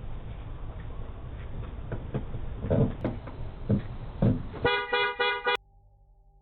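A car horn sounds once for about a second near the end and cuts off abruptly, after a few dull thumps, over steady background hiss heard through a doorbell camera's microphone.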